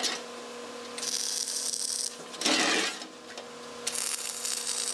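MIG welding gun tack-welding the inside corners of a sheet-steel box: two bursts of crackling arc, each about a second long, with a louder short noise between them.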